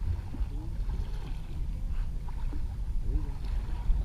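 Steady low rumble of water moving along the hull of a small sailing dinghy under way, mixed with wind on the microphone.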